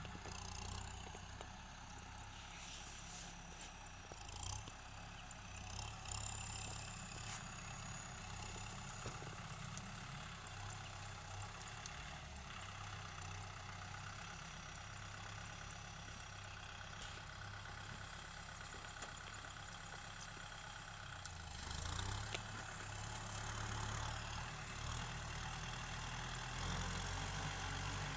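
Kubota tractor's diesel engine running steadily while ploughing, getting louder about twenty-two seconds in.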